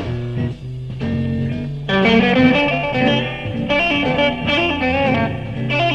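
Live electric blues band playing, with electric guitar to the fore and bending notes. The band plays a sparer, quieter passage at first and comes in fuller and louder about two seconds in.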